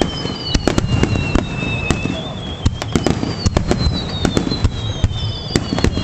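Fireworks display: a rapid run of sharp bangs and crackles, several a second, over a low rumble. Thin high whistles glide slowly down in pitch across it.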